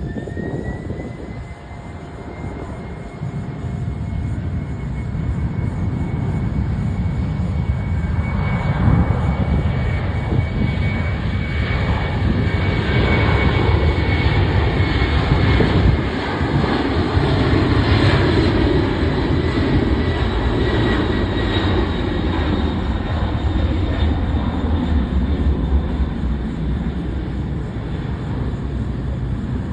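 Boeing 767-300F twin-engine jet freighter on its takeoff run: a high engine whine rises in pitch in the first second or two, then a heavy low jet rumble grows loud about eight seconds in and keeps on as the aircraft powers away.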